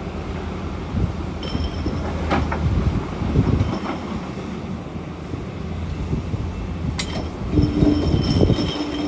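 SANY SY500H 50-tonne hydraulic excavator working in rock: the engine runs steadily under load, with short metallic squeals about one and a half seconds in and again near the end, and a sharp knock about seven seconds in.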